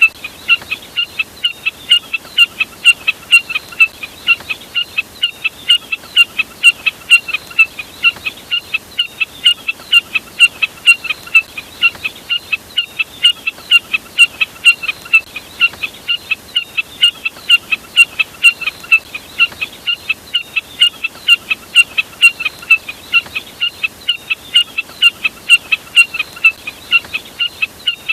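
A bird's short, sharp call note repeated in a steady, even run, about three notes a second: the burcet call, which the uploader names the common jack snipe, played as a hunting lure.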